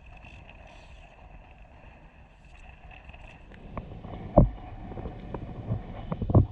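Water sloshing against a small boat, with wind buffeting the microphone; the sound grows busier partway through, with two heavy low thumps, the first about four seconds in and the second near the end.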